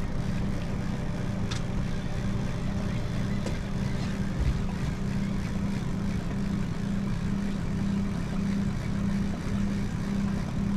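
Fishing boat's motor running steadily at slow trolling speed: an even low hum over a constant hiss.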